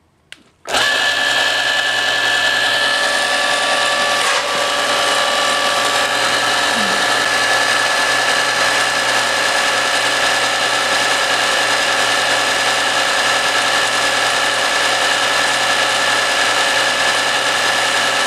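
Table saw's electric motor starting up suddenly about a second in, then running steadily with a constant whine as it drives the blade through a linked V-belt, on a test run.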